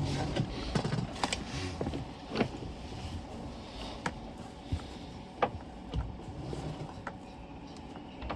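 Irregular clicks and knocks of metal hand tools against engine mount bolts and fittings in a boat's engine bay, a tap or two every second or so.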